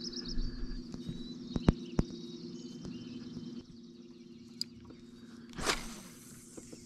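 A small bird trills in quick high chirps in the first second. Two sharp clicks come about two seconds in, and near the end a spinning rod swishes through a cast, all over a steady low hum.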